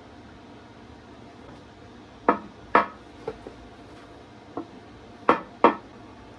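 Metal parts clinking and knocking as a part is fitted back onto an engine block by hand: several short sharp clanks, the loudest coming in two pairs.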